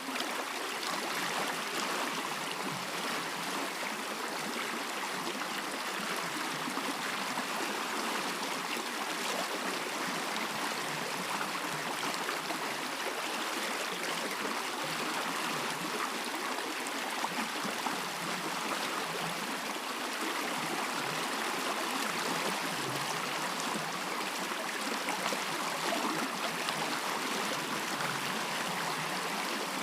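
A stream flowing in a steady, even rush of running water.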